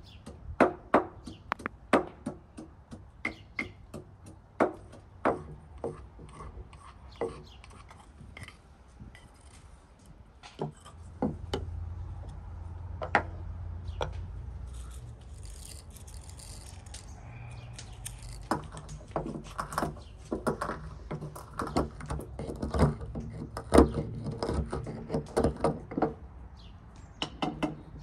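A series of irregular knocks and taps from hand work, with a low steady rumble starting about eleven seconds in.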